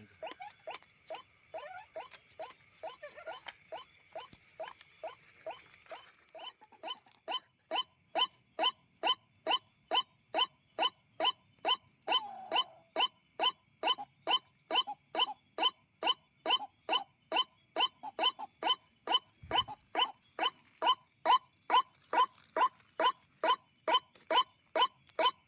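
White-breasted waterhen (ruak-ruak) calling: short downward-sliding notes repeated monotonously about two and a half times a second, growing louder about seven seconds in. This is the call played back at night to lure the birds, which come to it taking it for a mate or a rival.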